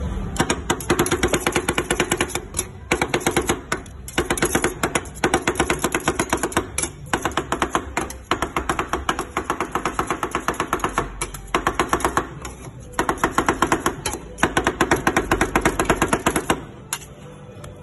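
Two metal spatulas rapidly chopping and clacking against the frosted steel plate of a rolled-ice-cream cold pan as the ice cream mixture is chopped and mixed, in bursts of a second or two with brief pauses.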